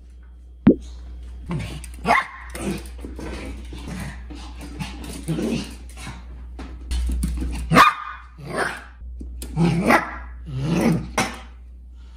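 Pomeranian barking: a string of short barks, loudest about two-thirds of the way in and again near the end.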